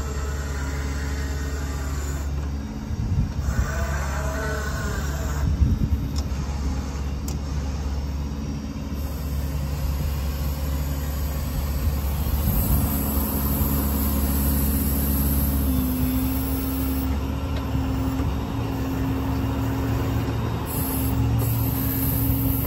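Ford 6.7 Power Stroke V8 diesel running with the PTO engaged, driving the hydraulic pump of the Versalift boom as the boom is operated: a steady low hum with a pump whine on top that steps up about twelve seconds in and again around sixteen. A few short clatters come between three and six seconds in.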